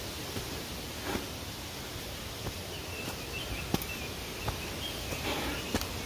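Hiker's footsteps on a forest trail: irregular soft steps and small snaps, roughly one a second, over a steady outdoor hiss.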